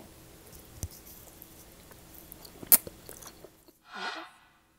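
A person chewing a mouthful of rice noodles, with small mouth clicks and one sharp click a little past halfway. Near the end comes a short hummed vocal sound, then the sound cuts off.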